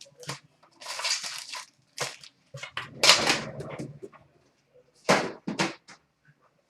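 Foil hockey-card pack wrapper being torn open and crinkled, in several short rustling bursts: the loudest about halfway through, two sharp rips a little later.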